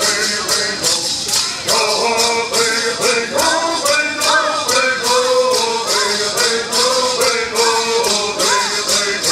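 Southern California Native American bird songs: a group of singers chanting together over gourd rattles shaken in a steady beat, about three strokes a second.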